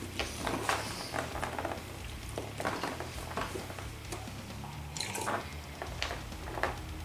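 Wet chewing and smacking of a large mouthful of gummy fruit snacks, in short irregular clicks, with a drink from a cup midway and the pile of gummies being scooped by hand.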